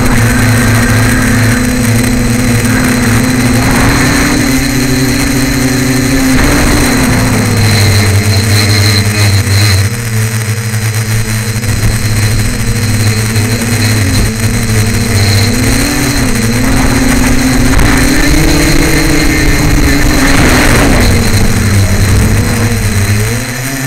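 Tricopter's electric motors and propellers buzzing steadily from close up. The pitch drifts up and down with throttle, with a brief drop and rise near the end.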